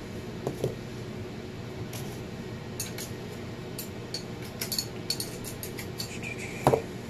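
Steel hand tool clinking against a turbocharger's metal housing as he works on its bolts: a run of light, irregular metallic clicks, with one heavier knock near the end.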